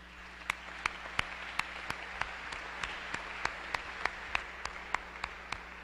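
Audience applauding after a talk, with one nearby clapper standing out in a steady beat of about three claps a second; the applause fades toward the end.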